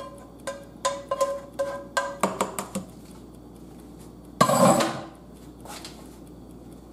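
A metal skillet being struck repeatedly to knock the last of the meat sauce out into a pot: a quick run of sharp taps, each leaving a short ring at the same pitch, for the first two and a half seconds. About four and a half seconds in comes a single short, loud burst of noise, the loudest sound here.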